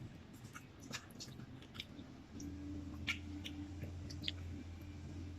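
Close chewing of crispy fried chicken, with scattered sharp crunches of the crust. About two seconds in, a low steady hum starts up under it.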